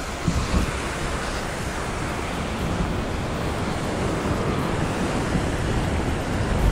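Wind buffeting the microphone over the steady wash of ocean surf against rocks.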